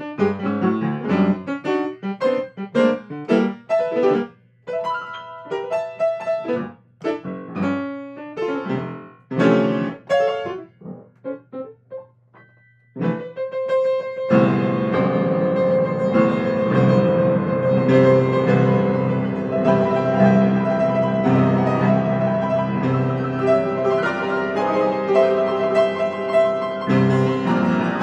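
Yamaha grand piano freely improvised: detached chords and short phrases with brief pauses at first, then from about halfway a dense, continuous passage with many notes ringing together.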